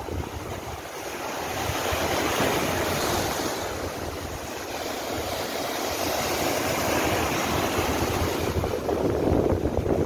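Sea waves breaking and washing over a rocky shore, the surf swelling about two seconds in and again near the end, with wind buffeting the microphone.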